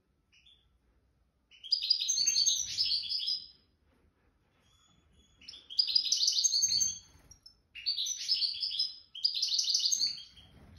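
Songbird singing in four bursts of fast, high twittering song, each phrase lasting one to two seconds with short pauses between.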